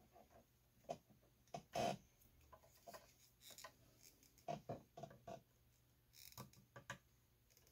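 Faint, scattered light clicks and taps, about a dozen, from a soldering iron and solder being handled over a circuit board. The sharpest tap comes about two seconds in, and there are small clusters about halfway through and near the end.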